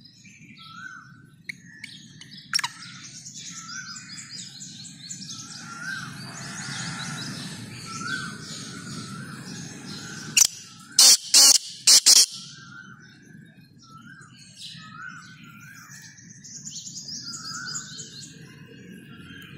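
Black francolin calling: a quick run of about five loud, harsh notes over roughly two seconds, midway through. Small birds chirp around it, and a short rising note repeats about once a second.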